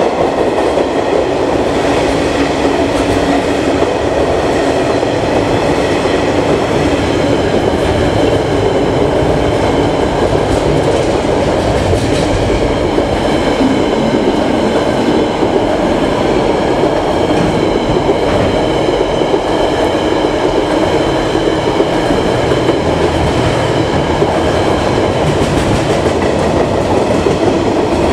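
Freight train's wagons rolling steadily past, a continuous rumble and clatter with a faint high ringing above it.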